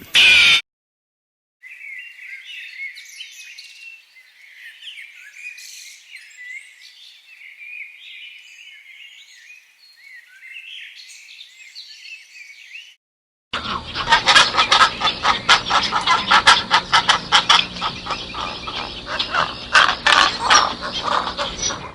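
Small birds chirping and twittering for about eleven seconds. After a short break, a louder stretch of rapid, closely spaced clicks mixed with calls runs to the end.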